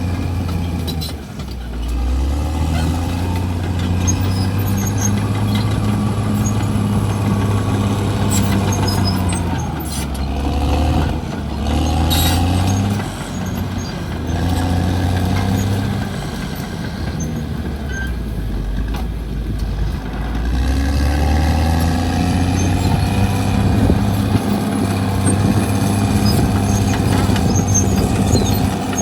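CAT D6R XL crawler bulldozer's diesel engine working hard, its speed dropping and picking back up several times. A few sharp cracks come near the middle.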